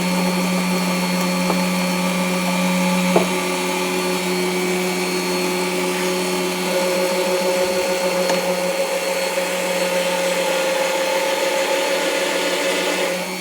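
Bosch PBD 40 bench drill running steadily in first gear at low speed while its bit drills into scrap steel with a little cutting lubricant. A brief click comes about three seconds in.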